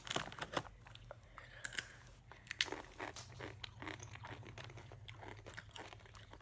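Takis rolled tortilla chips being bitten and chewed with the mouth close to the microphone: an uneven run of sharp crunches.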